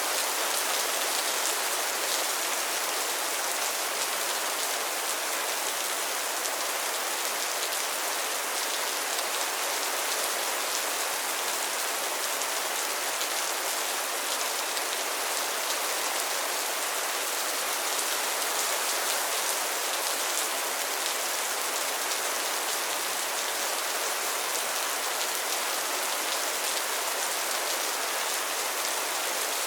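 Steady rain falling on lily pads and pond water: an even, unbroken patter of many drops.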